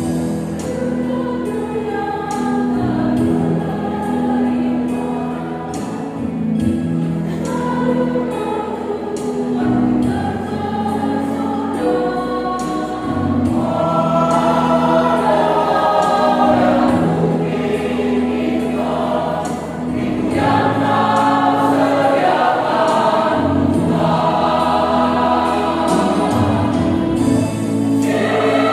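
Church choir singing in parts over held low notes, growing louder about halfway through.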